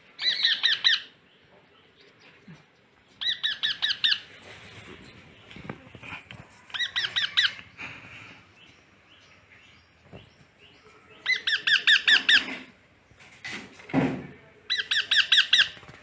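Baby parrot chick giving five bursts of rapid, repeated squawking calls, each about a second long and a few seconds apart: the food-begging calls of a chick being hand-fed. A lower, shorter sound comes in between the last two bursts.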